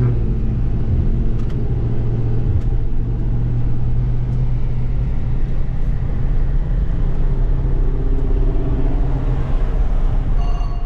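Dodge Charger R/T's 5.7-litre HEMI V8 running steadily at an even pitch, with no revving, under a constant low rumble.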